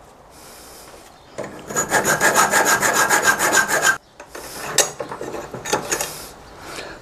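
Hand file scraping along a metal bracket clamped in a vise, a dense run of quick strokes lasting about two and a half seconds with a high metallic ringing through it, as the bracket is filed to clear the rivet nuts. After that come quieter scrapes and a few sharp clicks as the bar is handled.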